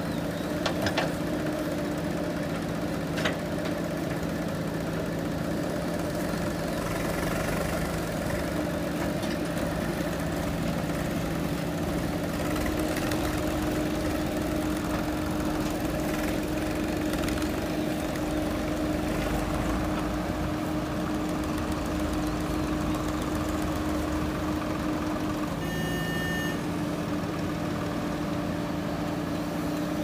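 Diesel engine of a JCB 3DX backhoe loader running steadily while it digs and loads soil, its pitch shifting a little as the machine works. There are a few short knocks in the first seconds, and a brief beep about 26 seconds in.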